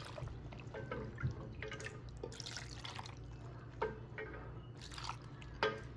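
Broccoli cooking broth poured from a cup into a glass blender jar of cooked broccoli, splashing and dripping in irregular spurts over a low steady hum.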